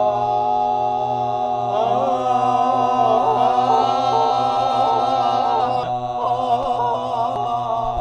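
Several young men's voices singing and holding one long note unaccompanied, as if seeing who can hold it longest. One tone stays steady throughout, and other wavering voices join about two seconds in.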